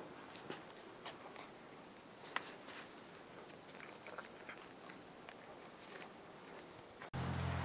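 Crickets chirping in short repeated trills, with scattered light clicks and taps. About seven seconds in the sound cuts off suddenly to a louder steady low hum with hiss.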